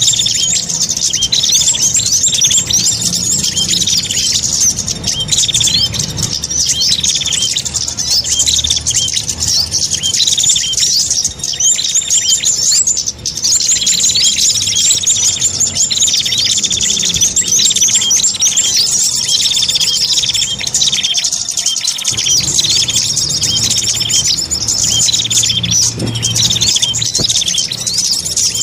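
Small songbirds calling continuously in dense, rapid runs of high, thin chirps, a mix of recorded calls played as a lure to draw in small birds.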